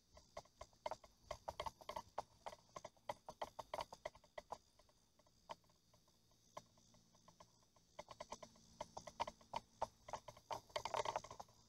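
Bursts of rapid, light, irregular clicks and taps, dense for the first few seconds, sparse in the middle, and dense again a few seconds before the end.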